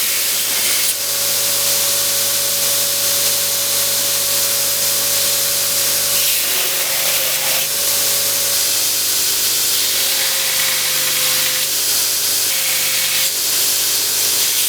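Power grinder running steadily with steel held against the abrasive, a loud even hiss over a steady motor hum whose pitch sags slightly now and then under load, as burrs are ground off rough cut edges.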